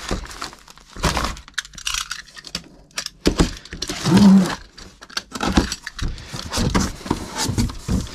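Boxes and packaged supplement items being handled: irregular knocks, clatter and rustling, with a short low tone about four seconds in.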